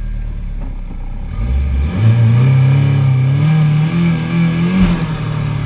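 Nissan 240SX (S14) naturally aspirated KA24DE four-cylinder revving up hard from idle about a second and a half in, then held at high revs for a burnout, with a brief drop in revs near the end. With an open differential this spins only one rear tyre, a one-wheel peel.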